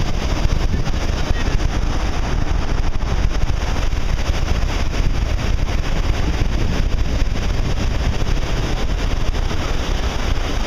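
Distant Atlas V rocket climbing after launch: a steady low rumble with a fine crackle, mixed with wind buffeting the microphone.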